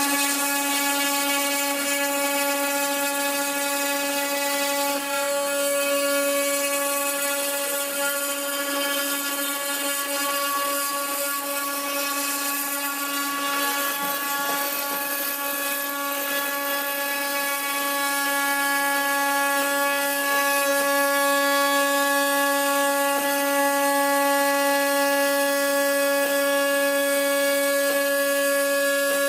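Desktop CNC router's spindle running with a steady high whine of several held tones while its end mill cuts a slot in an aluminium plate, with a hiss of cutting over it.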